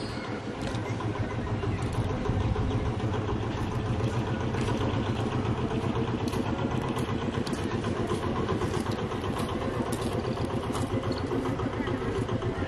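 An engine running steadily at idle. It gets louder about two seconds in and then holds level, with light clicks over it.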